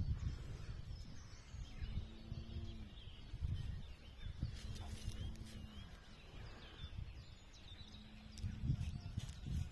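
Countryside ambience: a low rumble of wind on the microphone, small birds chirping faintly now and then, and a low steady hum that comes and goes about four times.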